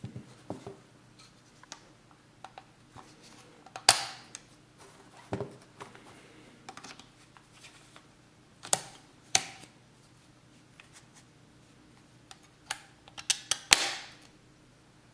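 Plastic clicks and knocks from a Moerman Excelerator 2.0 squeegee handle being worked by gloved hands, its channel-clamp lever opening and snapping shut. A few sharp clicks come several seconds apart, with a quick cluster of them near the end, between softer handling rustles.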